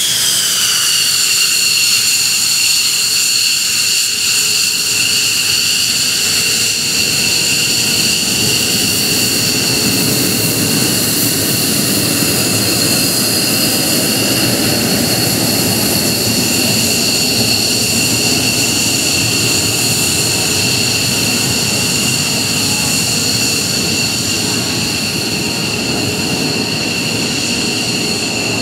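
The twin Pratt & Whitney F100 turbofans of a JASDF F-15J Eagle taxiing. A high, steady whine dips slightly in pitch in the first second, then holds over a rushing exhaust noise that swells as the jet turns its tail toward the listener.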